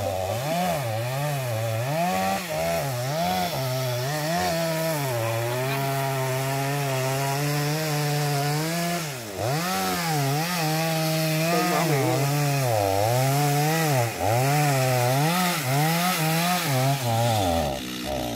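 Two-stroke chainsaw cutting into the trunk of a large eucalyptus tree. The engine revs up and down again and again as the cut is worked, holds high through longer stretches, dips sharply about halfway and drops back to a lower speed near the end.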